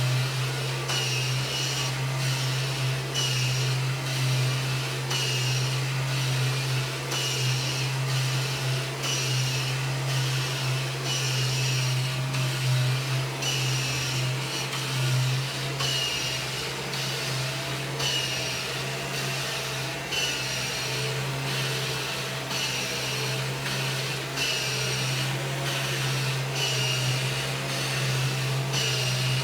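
Kirby G5 upright vacuum cleaner running steadily, with a constant motor hum and a higher hiss that swells about once a second as it is worked over the floor.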